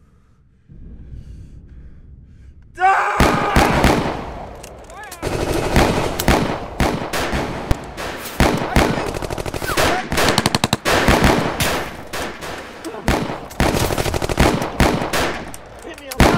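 Machine-gun fire and gunshots in rapid bursts, breaking out suddenly about three seconds in after a low rumble and going on in dense volleys.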